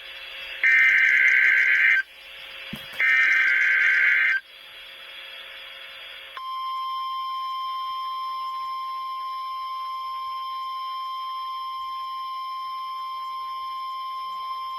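Two bursts of Emergency Alert System SAME header data, the harsh electronic warble that encodes the tornado watch alert, each about a second and a half long. A couple of seconds later the steady single-pitch 1050 Hz NOAA Weather Radio warning alarm tone begins and holds, quieter than the data bursts.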